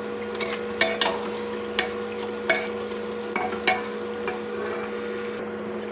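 Spoon stirring potato and aubergine curry in a pressure cooker, knocking against the metal pot several times, about one knock every half to one second, over a steady low hum.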